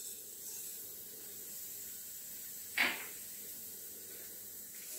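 Mustard seeds sizzling faintly in hot oil in a kadhai, a soft steady hiss, with one brief click about three seconds in.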